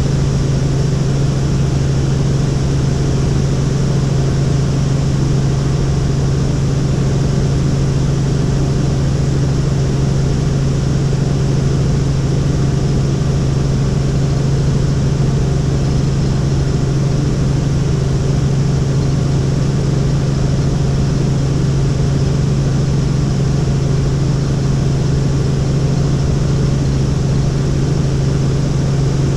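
Helicopter in flight: a loud, steady drone of rotor and engine with a strong low hum that holds unchanged throughout.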